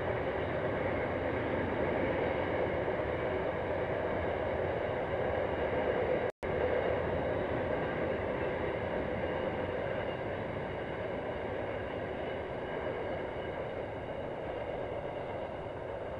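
Container wagons of a freight train rolling along the line in a steady rumble with a faint ringing hum. The sound cuts out for an instant about six seconds in, then slowly fades as the train draws away.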